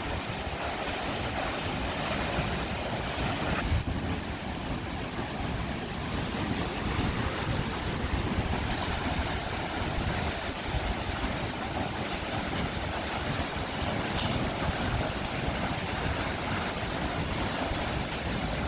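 Latourell Falls, a tall plunge waterfall, rushing close by: a steady, even noise of falling water.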